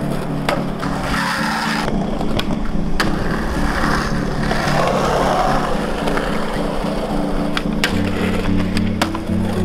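Skateboard on concrete: wheels rolling, with sharp clacks of tail pops and board landings scattered through, over background music with held bass notes.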